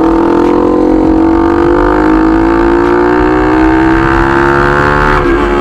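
Bajaj Pulsar NS200's single-cylinder engine through an aftermarket SC Project full-system exhaust, accelerating on the road: the exhaust note climbs steadily in pitch, dips at a gear change near the end, then starts rising again.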